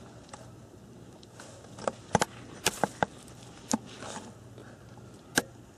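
Handling noise: a scatter of sharp clicks and knocks, about eight, most of them bunched between two and four seconds in, with one more past five seconds, over a faint steady low hum.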